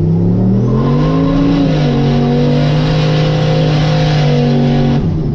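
Old pickup truck's engine at full throttle during a launch, its pitch rising, dipping once about two seconds in, then holding high and steady with a hiss from the rear tires spinning, before cutting off sharply near the end.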